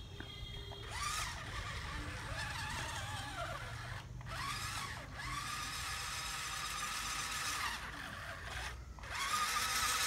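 Small electric motor of a homemade remote-control toy truck whining as it drives, its pitch rising and falling with speed, cutting out briefly three times.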